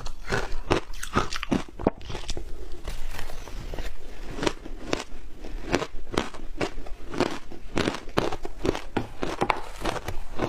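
Crushed ice being bitten and chewed close to the microphone: a dense, irregular run of crisp crunches, several a second.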